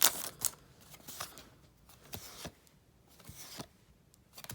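Trading cards being handled and flipped through: a short rustle at the start, then soft, scattered card slides and clicks.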